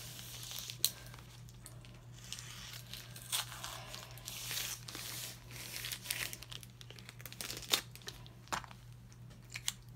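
Parcel packaging crinkling and tearing as it is slit open with an X-Acto knife, in irregular rustles with scattered sharp clicks.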